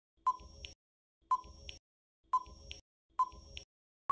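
Countdown timer sound effect: four short ticks, about one a second.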